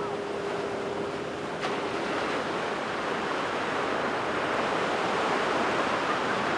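Ocean surf breaking and washing in a steady rush, with a faint steady hum that fades out about two seconds in.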